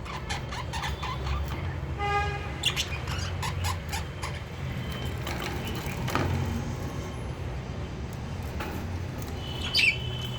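Lovebirds giving a few short chirps and squawks, the sharpest near the end, with scattered small clicks as they nibble millet grass, over a steady low rumble.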